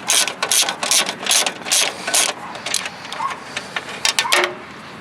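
Ratchet wrench clicking in repeated strokes, about two a second, as the nuts holding a plate are loosened. It goes fainter after about two seconds, with a few sharp clicks near the end.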